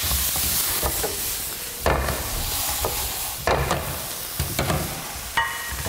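Minced pork and pickled mustard greens sizzling in a hot pan while being stir-fried, the utensil scraping and knocking against the pan about six times. The knock near the end rings briefly, like metal on metal.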